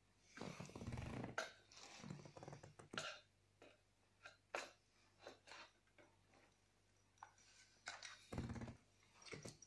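Scattered clicks and knocks of plastic and metal baby-stroller frame parts being handled and pushed together. Two short, low rasping sounds come about half a second in and again near the end.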